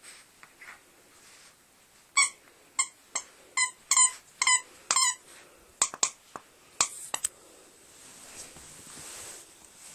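A dog's squeaky toy squeaking about a dozen times in quick succession, roughly two squeaks a second for about five seconds, as a small Maltese–Shih Tzu cross bites and chews it.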